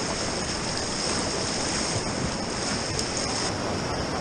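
Rushing whitewater of a river rapid heard from a kayak on the water: a steady, even roar of churning water.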